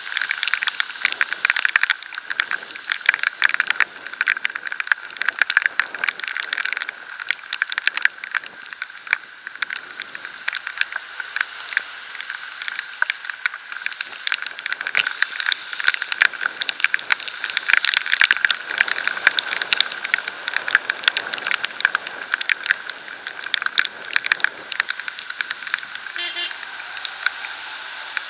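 Raindrops and road spray striking a bicycle-mounted camera in quick, dense clicks over a steady hiss of wind and wet riding.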